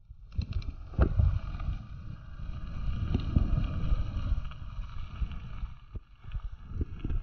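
Mountain bike riding a rough gravel track: a steady rumble of tyres and frame over the stones, with sharp knocks and rattles from bumps, all under wind buffeting the camera microphone.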